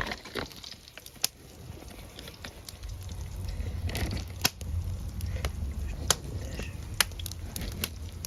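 Wood fire crackling, with irregular sharp pops scattered through; a low rumble comes in about three seconds in.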